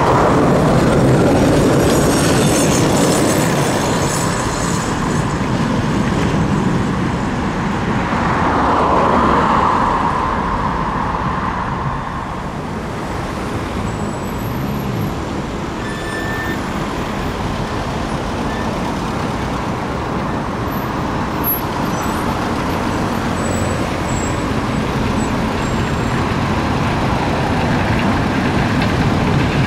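Street traffic on a tram line: trams and road vehicles passing, the noise swelling near the start and again about eight to ten seconds in, then settling to a steady traffic hum.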